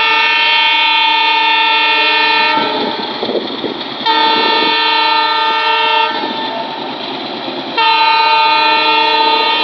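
Alco WDM3DA diesel locomotive sounding its horn in three long blasts of about two seconds each, with short breaks between. The last blast runs on past the others. In the breaks the locomotive's engine and the train's wheels rumble.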